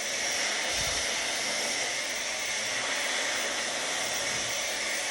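Handheld hair dryer running steadily, blowing air as it dries hair.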